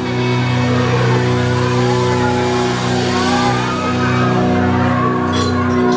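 Live country band starting a song: a held chord with steady bass rings out, and cymbal hits come in near the end. The live recording is poor and loud.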